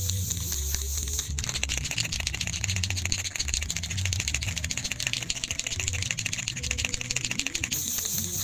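Fast, rattling scraping of a hand tool on a hard surface over background music; the scraping starts about a second in and stops shortly before the end, leaving a steady hiss.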